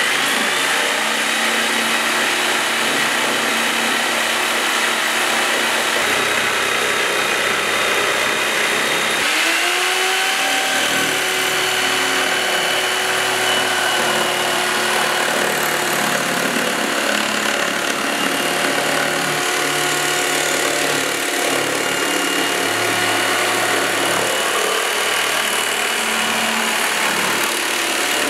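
GALAX PRO corded jigsaw running and sawing a curved cut through a sheet of plywood, a steady motor whine with blade chatter. It starts abruptly, and its pitch shifts about nine seconds in.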